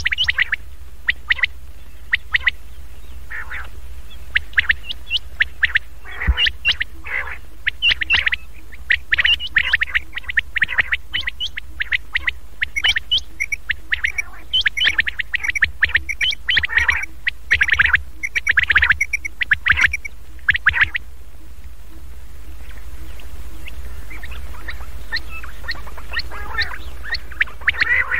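Recorded common quail calls played as a lure for wild quail: rapid clusters of short, sharp calls, dense for most of the stretch, then thinning out for several seconds before starting again near the end. A steady low hum runs underneath.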